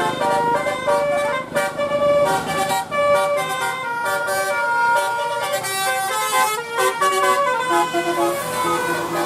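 Bus telolet horn playing a tune: a run of multi-tone air-horn notes stepping up and down in pitch, over road-vehicle noise.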